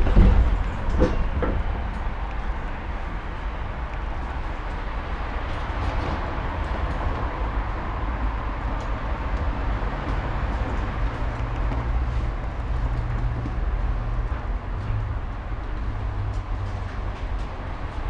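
Interior of a Budapest ICS tram under way: a steady low rumble of steel wheels on the rails. A few sharp knocks come in the first second or so, and a low hum joins in the second half.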